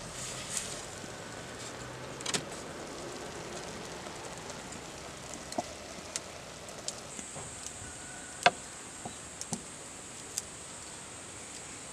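Soft steady hiss with scattered crackles and ticks, one sharper tick about eight and a half seconds in, from a wood-fired clay cooking pot. A thin high insect buzz joins about seven seconds in.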